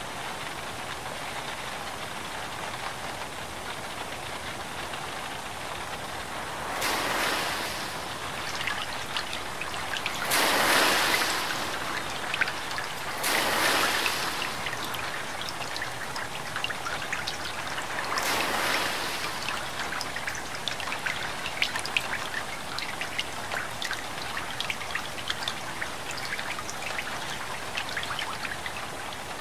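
Floodwater sloshing along a flooded street, with four louder swishing surges as cars plough through the deep water and push up waves. In the second half, many small raindrop ticks patter on a car's windshield and roof.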